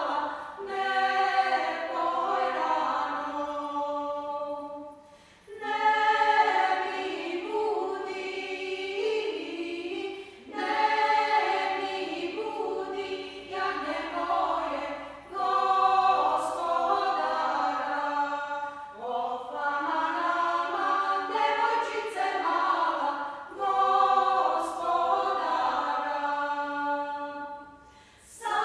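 Small Serbian women's vocal ensemble singing a folk song in harmony, in phrases of a few seconds broken by short pauses.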